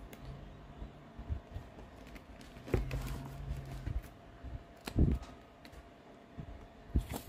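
Plastic acrylic paint bottles handled and knocked on a wooden table while paint is squeezed out onto a palette: scattered knocks and rustles, the loudest a thump about five seconds in.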